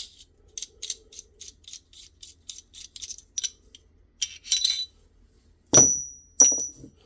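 Small metal pistol parts being handled: a run of light clicks about four a second, then two sharp metal clinks near the end, each with a brief high ring.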